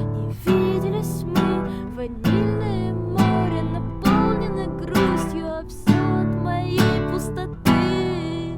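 Acoustic guitar being strummed, a chord struck about once a second and left to ring.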